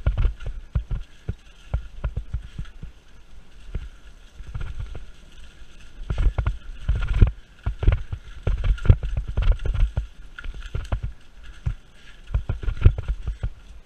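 Mountain bike rolling over a dry, leaf-covered dirt trail: tyres crunching through leaves, with many irregular knocks and rattles as the bike goes over bumps and roots.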